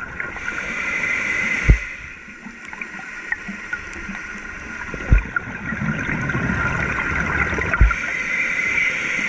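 Scuba diver's regulator underwater: a rush of exhaled bubbles about half a second in, a quieter gap, then a longer rush of bubbles from about six seconds on. Three dull low thumps come through along the way.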